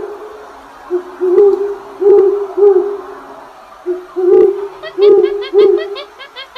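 A series of low hooting calls, about seven, rising and falling over a steady low hum, with a quick run of short high chirps near the end.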